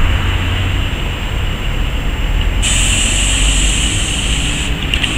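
Articulated Irisbus Cristalis trolleybus driving slowly through a turn towards the listener: steady electric-drive hum with a high band over low tyre and road rumble. A louder hiss joins in for about two seconds from midway, then stops suddenly.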